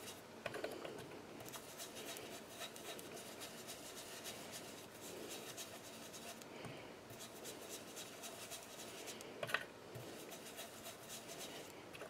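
Faint scratching and rubbing of a small ink blending brush being scrubbed over cardstock petals, in many short strokes, with one brief tap about nine and a half seconds in.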